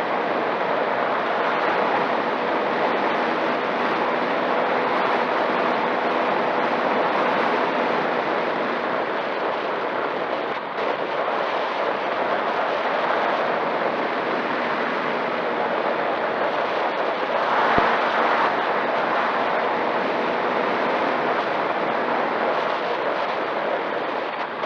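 Steady rushing noise with a faint steady hum, swelling briefly about three-quarters of the way through.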